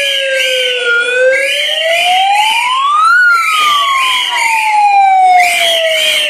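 A wailing siren gliding slowly in pitch: it falls for about a second, climbs to a high peak about three seconds in, then sinks slowly again. Many protest whistles blow short, repeated shrill blasts over it throughout.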